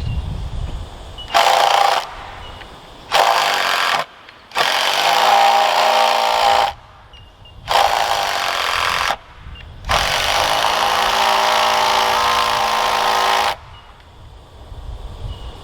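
Battery-powered drill driving screws into timber: five runs of the motor, the longest near the end lasting about three and a half seconds, with short pauses between.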